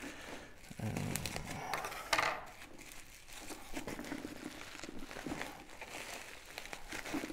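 Bubble wrap and a clear plastic packing bag crinkling and rustling as they are handled and pulled away from a boxed card game, with a louder crackle about two seconds in.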